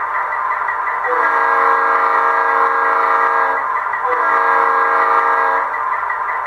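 Model locomotive sound decoder (ESU LokSound V4 in a Bachmann H0 China Railways ND5 / GE C36-7) sounding its multi-chime air horn twice: a long blast of about two and a half seconds, then a shorter one. The steady diesel engine sound of the decoder runs underneath, played through a small sugar-cube speaker.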